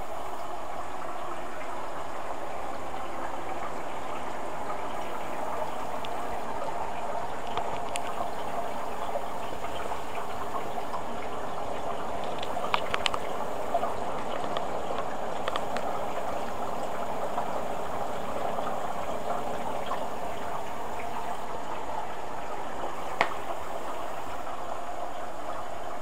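Hoover A8506 washer-dryer filling with water for a cotton rinse: a steady rush of incoming water. A few light clicks come about halfway through, and one more near the end.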